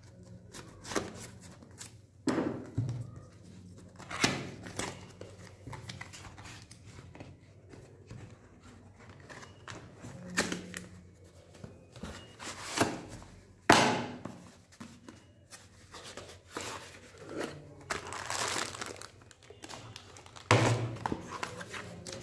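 Plastic packaging crinkling and rustling as a sealed mouse packet is opened, with cardboard box and insert being handled. The sounds are irregular crinkles and short taps, with a sharper knock about two-thirds of the way through.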